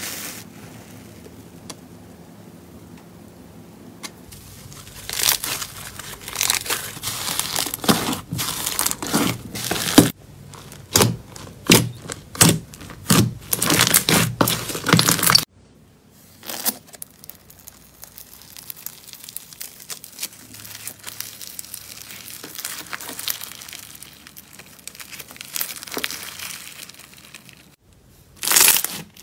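Slime being squeezed and worked by hand, giving crackling, popping squelches: dense and loud for the first half, then quieter after an abrupt cut about halfway through.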